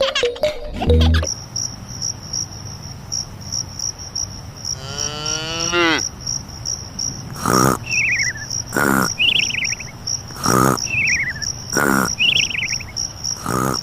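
Steady, fast, high-pitched chirping like crickets. About five seconds in there is a falling glide. From about halfway on, a repeating pattern of a knock and a short falling chirp comes roughly every second and a half, like an added sound-effect or music track.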